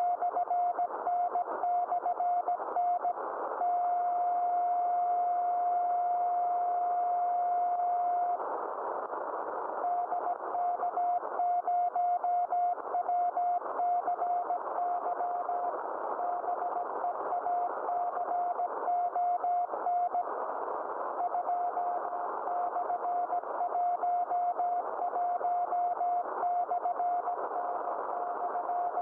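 DK0WCY aurora beacon's Morse code (CW) signal on 3579 kHz, heard through a Yaesu FT-991A receiver. A single steady tone is keyed on and off in dots and dashes over a hiss of band noise. About three and a half seconds in, it holds one long unbroken tone for about five seconds.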